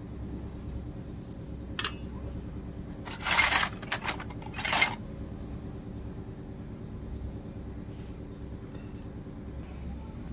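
Miniature stainless-steel cups clinking and jangling against each other and their wire carrier as they are handled, a cluster of clinks a couple of seconds in and a few fainter ones near the end. A steady low hum runs underneath.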